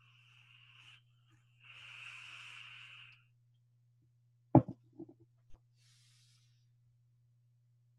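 Two soft breathy hisses in the first three seconds, then a sharp knock about halfway through followed by a few softer clicks, all over a steady low hum.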